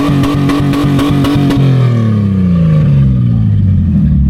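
Ford AU Falcon wagon's engine revved hard, already high as it begins and held there for about a second and a half. The revs then fall back down to idle over the next couple of seconds.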